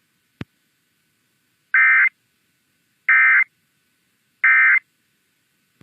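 EAS end-of-message (NNNN) SAME data header: three identical short bursts of digital data tones, each about a third of a second long and about 1.4 s apart, marking the end of the alert. A single click comes just before them.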